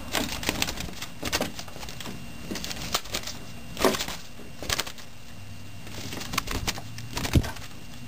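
A small trapped bird flapping and scrabbling on a wooden windowsill against the window glass: irregular light knocks and wing rustles, with a sharper knock about four seconds in and another near the end.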